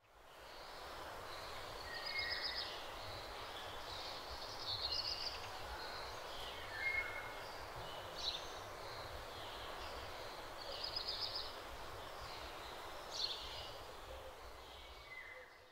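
Outdoor nature ambience: a steady background hiss with small birds chirping and giving quick trills every couple of seconds. It fades in at the start and fades out at the end.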